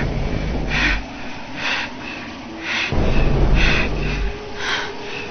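A person breathing hard in short, rasping gasps, about one a second, over a low rumble. This is the laboured breathing of someone in physical distress, which the companion takes for a reaction, the body rejecting something.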